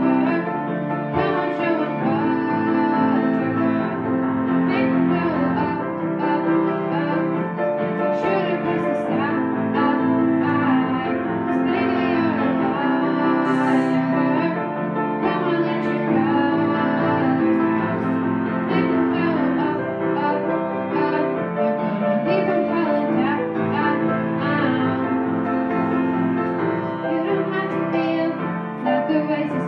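A girl singing a pop song into a microphone while accompanying herself on a grand piano.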